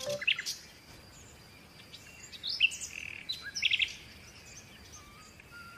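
Baby chicks peeping: a few short high chirps at the start, then a cluster of chirps in the middle.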